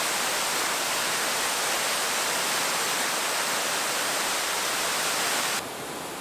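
Waterfall rushing, a steady even hiss of falling water; near the end it cuts suddenly to a quieter, softer rush.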